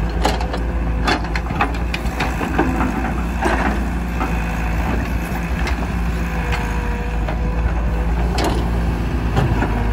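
Caterpillar E120B hydraulic excavator's diesel engine running under load as the boom swings and the bucket digs, with a steady whine and scattered knocks of the bucket against the dirt.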